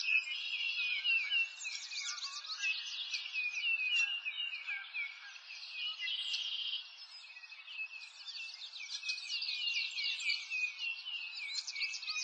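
Dense chorus of small songbirds chirping, with many quick downward-sweeping notes overlapping continuously over a faint steady hiss.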